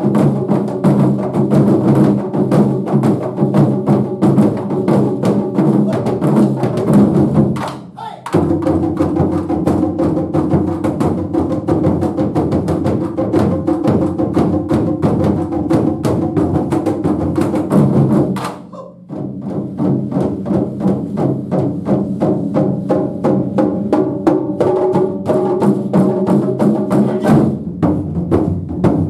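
Japanese taiko drum ensemble playing, a dense stream of rapid drum strikes that falls away briefly about eight seconds in and again a little after eighteen seconds.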